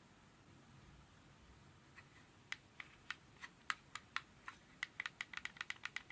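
A run of light, sharp clicks: a few scattered ones at first, then quickening to about five a second near the end.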